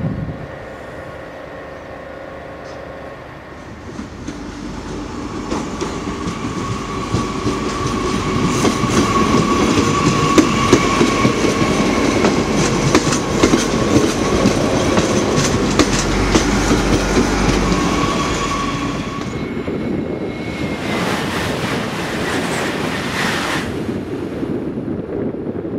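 Passenger train running past on electrified track, with a steady electric motor whine over the rapid clicking of wheels on the rails. The sound builds up over several seconds, holds, then fades. Near the end comes a few-second burst of rushing, wind-like noise.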